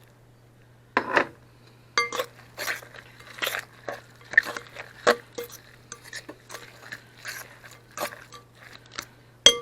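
A spoon stirring stuffing mix in a bowl, with repeated irregular clinks and knocks against the bowl's sides, some ringing briefly. It starts about a second in.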